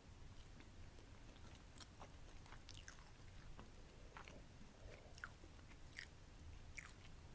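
Faint, close-up chewing and biting of a crispy pan-fried egg wrap: soft crunches and small crackles at irregular intervals.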